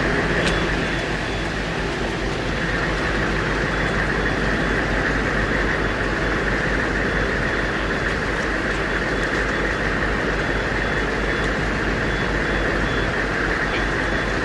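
Steady background noise with a low hum underneath, even throughout, with no distinct knocks or calls.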